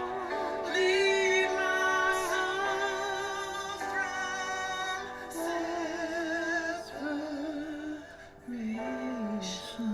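Worship song: a woman's voice singing long, wordless held notes with vibrato over sustained chords.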